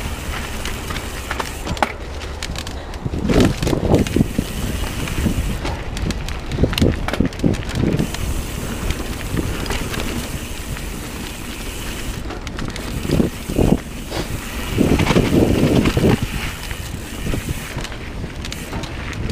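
Mountain bike riding fast down a dirt singletrack: continuous tyre noise and wind rumble on the microphone. Several louder bursts of rattling and clatter come as the bike goes over rough ground, the biggest about three to four seconds in and again near fifteen to sixteen seconds in.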